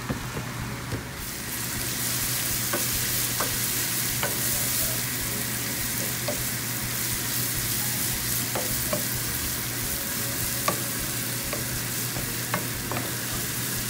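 Shredded carrot and chopped onion sizzling in oil in a frying pan, stirred with a wooden spoon that gives scattered light knocks and scrapes against the pan. The sizzle grows louder about a second in and then holds steady.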